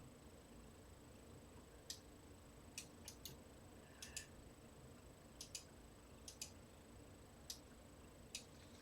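Faint, sharp light clicks at irregular intervals, several in quick pairs, over near-silent room tone: small things being handled and tapped.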